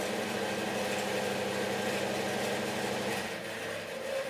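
DeWalt 876 bandsaw running with nothing being cut: a steady motor hum with the whir of the blade and wheels. Near the end the lowest part of the hum drops out and the sound begins to fade.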